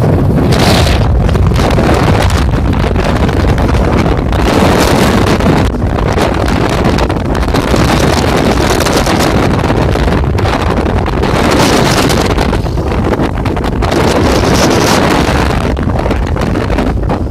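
Loud wind rushing over the microphone of a camera carried by a skier going downhill at speed, buffeting unevenly, with swells of hiss from the skis on the snow every few seconds.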